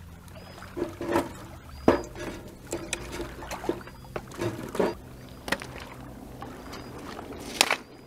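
Dry sticks cracking and knocking irregularly as they are fed into a wood fire under a grill, with water lapping at the shore.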